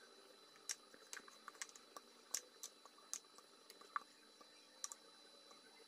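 Near silence with about a dozen faint, irregular small clicks as thick chocolate cake batter is poured and scraped from a plastic mixing bowl into a cake tin.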